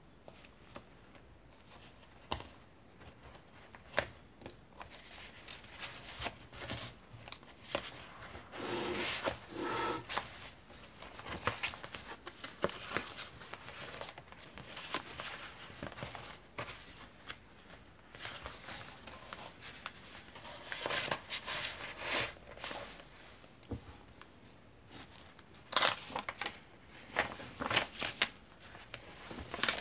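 Vintage paper pages and fabric layers of a handmade junk journal being turned and handled: stop-start rustling and crinkling of paper, with a few sharper flaps as pages and tags are flipped over.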